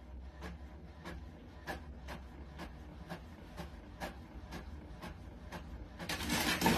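Epson inkjet printer running, its mechanism clicking evenly about twice a second over a low hum. Near the end a louder, noisier whirring swells up.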